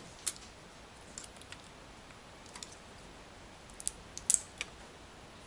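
Scattered light clicks and snaps of pliers prying apart a laptop battery pack, working pink 18650 lithium-ion cells free of the plastic casing. The sharpest snap comes a little over four seconds in.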